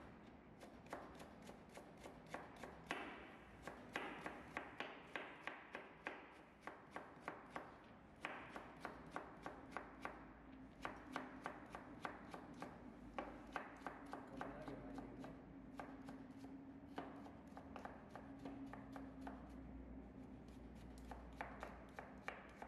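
Kitchen knife chopping carrots into thin matchstick strips on a plastic cutting board: quick, even knocks of the blade on the board, about three a second, in runs broken by short pauses.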